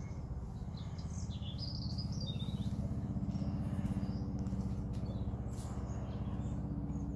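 Small birds chirping in short bursts about one to three seconds in, over a steady low hum with a fast, even pulse.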